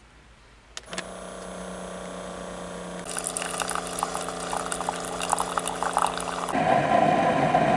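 Keurig single-serve coffee maker brewing a K-Cup. There is a click about a second in, then the machine hums steadily. From about three seconds in, coffee streams and crackles into a ceramic mug, and the sound grows louder and rougher near the end.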